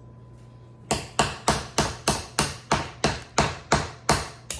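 Wooden mallet striking a chisel into a gemstone dig kit's block: a steady run of sharp taps, about three a second, starting about a second in.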